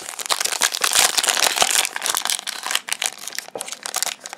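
Foil trading card pack wrapper crinkling and crackling in the hands as it is gripped and pulled open at its sealed seam, a dense run of sharp crackles.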